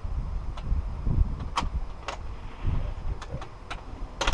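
Storm door latch and handle being worked by hand: a series of sharp metal clicks and clunks with low handling thumps, the loudest click near the end.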